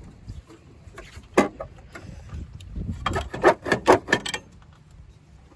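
Alternator being pried and wiggled loose from its engine-bay mounting bracket, metal knocking and scraping against metal. There is a sharp knock about a second and a half in, then a quick cluster of knocks between about three and four seconds.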